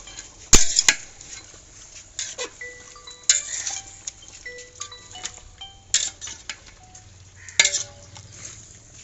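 Metal ladle stirring a curry in a metal pot, with sharp clanks and scrapes against the pot's sides at irregular moments, some ringing briefly.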